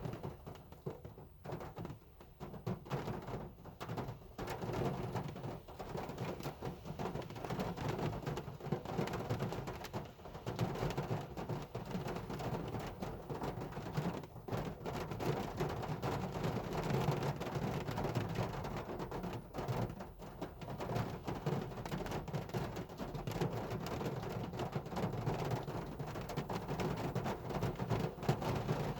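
Hard rain drumming on a car's roof and body in a dense, steady patter, a little lighter and patchier for the first few seconds, then heavier.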